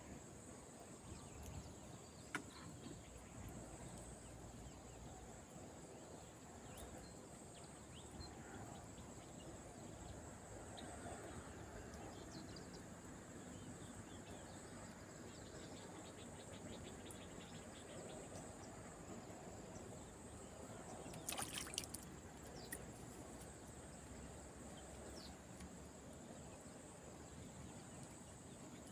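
Faint outdoor ambience: a low, even background noise with a steady high-pitched drone, and one brief rattle about three-quarters of the way through.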